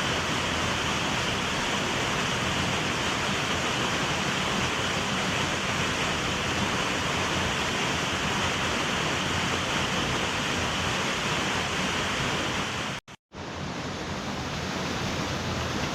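Waterfall, a steady rush of falling water. It breaks off briefly near the end, then resumes a little quieter.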